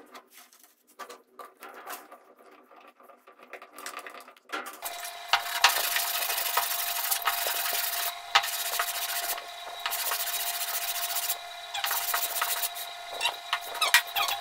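Hand sanding: a small wooden piece rubbed back and forth on a sheet of sandpaper, starting about five seconds in after faint handling, with short breaks between strokes.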